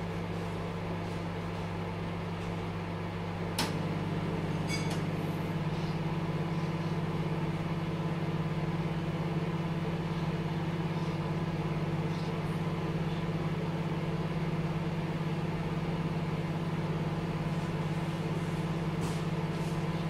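A dial-control microwave oven running with a steady hum. About three and a half seconds in, a click sounds and the hum steps up louder and fuller as the magnetron cuts in.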